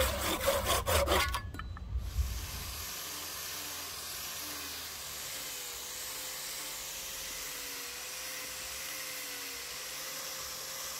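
Saw cutting wood with quick, even strokes, about five a second, stopping about a second and a half in. A steady hiss follows for the rest of the time.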